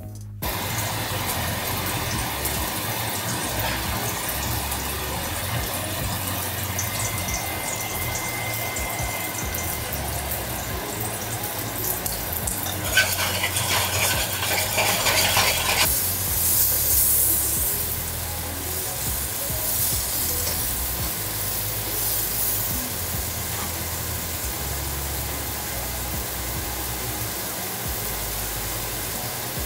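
Water bubbling in a stainless saucepan on an electric coil stove, with food sizzling in a frying pan beside it. A louder hiss comes for about three seconds around the middle.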